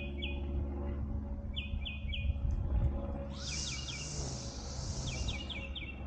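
Lawn mower engine running steadily, with a bird calling over it in quick series of three or four short chirps, several times. A high hiss rises over it for about two seconds around the middle.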